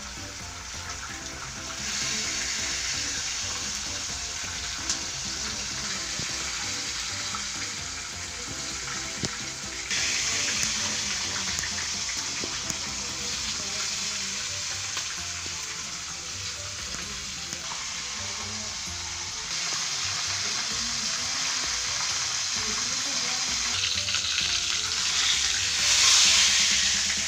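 Flour-dredged mojarra frying in hot oil in a frying pan: a steady sizzle that steps up louder a few times and is loudest near the end.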